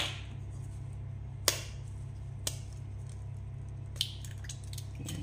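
Eggshell tapped against the rim of a stainless steel bowl and broken open: a sharp click about a second and a half in, a fainter one a second later, and a cluster of small cracking clicks about four seconds in.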